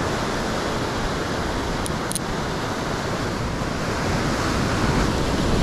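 Ocean surf washing and breaking over coastal rocks, with wind on the microphone. Two brief high clicks about two seconds in.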